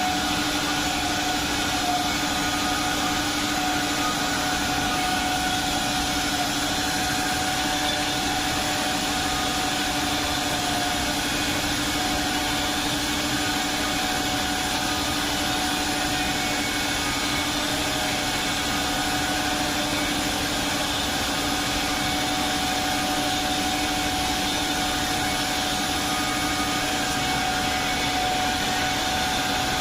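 Woodworking CNC drilling and milling machine running steadily, its spindle motors giving a constant whine over a broad mechanical noise.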